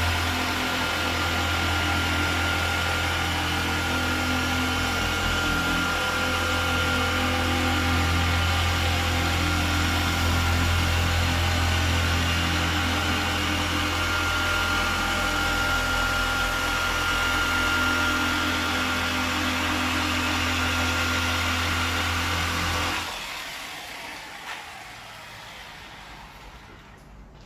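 Electric dual-action polisher running steadily with its pad on car paintwork during machine polishing (paint correction). It is switched off near the end, leaving a few faint knocks.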